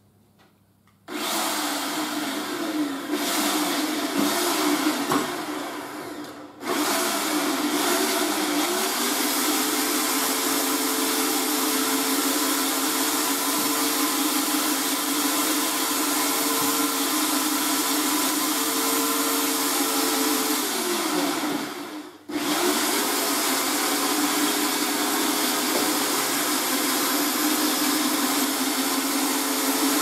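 VEVOR portable electric hoist/winch motor running steadily, winding in its wire rope to pull a car along. It starts about a second in and cuts out briefly twice: about six seconds in, and about 22 seconds in, with its pitch sagging just before the second stop.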